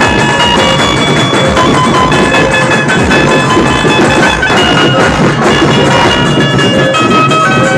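Dhumal band music played loud through a stack of speakers: a melody of held notes stepping from pitch to pitch over dense, fast drumming.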